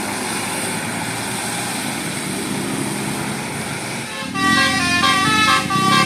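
Passing bus engine and road noise, then about four seconds in a Basuri-type telolet multi-tone bus horn starts playing a stepping melody, louder than the engine.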